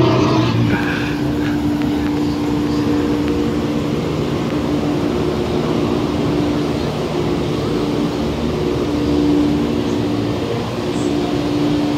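Loud, steady droning noise with a low humming tone that drops out briefly a few times.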